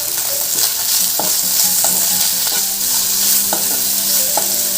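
Chopped onions, carrot and tomatoes sizzling in a little hot oil in a pan while being stirred, with a few short knocks of the spatula against the pan.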